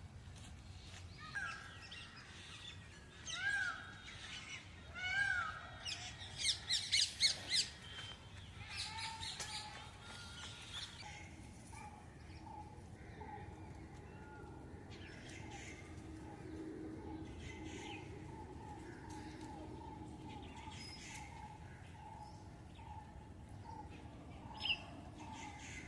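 Birds calling: three short arching calls, then a loud burst of harsh calls about six to eight seconds in. After that a long run of soft, quick, evenly spaced notes goes on under a few scattered calls.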